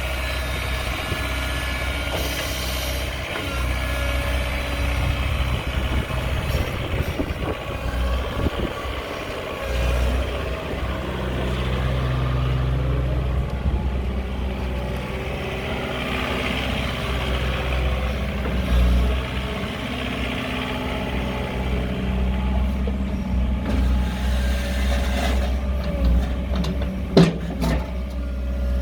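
Diesel engine of a JCB 48Z-1 midi tracked excavator running, its note shifting in pitch and strength several times over the stretch. A single sharp metallic knock stands out a little before the end.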